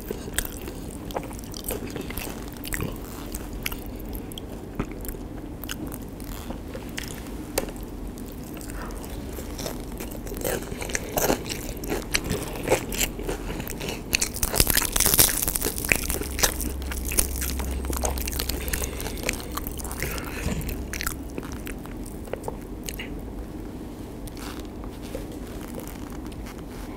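Close-miked crackling and crunching of crispy battered fried cempedak fritters being torn apart by hand and eaten, with many small crackles and a louder burst of crunching about halfway through.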